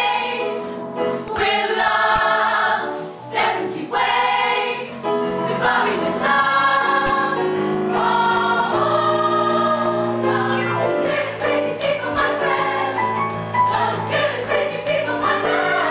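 A musical-theatre cast singing together, women's voices with a man's, over a keyboard accompaniment; sustained low notes come in about halfway through.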